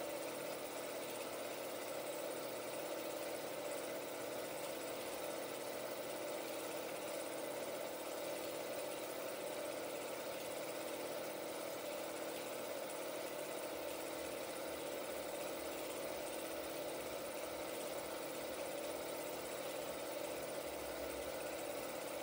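16mm film projector running, a steady mechanical whir with a fast, even ticking of the film transport.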